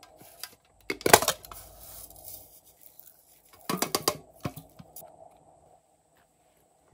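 Handling noises from a small cat-shaped tin and a glitter packet: clinking and rustling as the tin is handled, then glitter shaken from the packet onto slime. The sound comes in two short bursts, about a second in and around four seconds in, with a few light ticks after.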